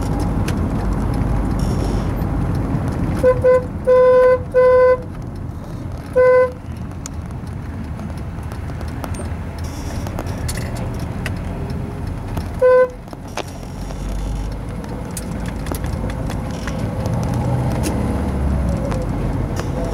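A car horn with a single steady pitch honks in a run of toots: a quick double toot about three seconds in, two longer blasts right after, another at about six seconds and a last short one near thirteen seconds. Underneath, steady road and engine noise inside a moving taxi.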